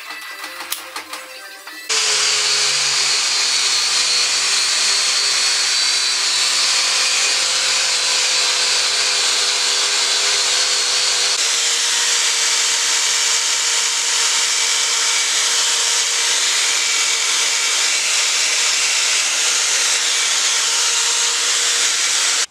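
Corded electric drill spinning a wire wheel brush against a metal gearbox housing, scrubbing off old paint and rust: a loud, steady hiss of wire on metal over the drill motor's whine. It starts about two seconds in, after a short stretch of music, and the motor's note shifts slightly about halfway through.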